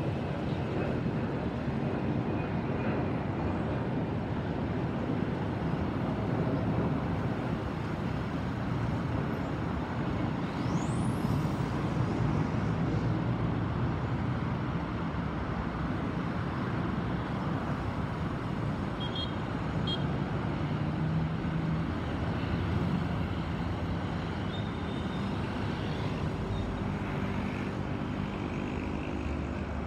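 Steady distant rumble of an Airbus A320's CFM56 turbofan engines as the airliner flies away after passing overhead, level barely changing.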